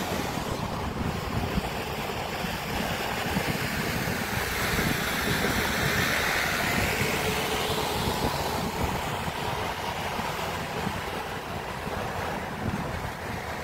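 Steady rush of street traffic and vehicle noise heard from a moving vehicle, with wind on the microphone, swelling a little around the middle.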